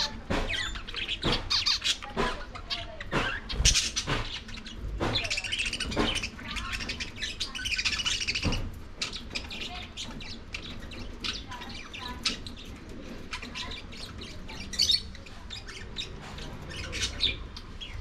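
Budgerigars chirping and squawking, with many sharp clicks and taps in the first half; the calls grow sparser after that.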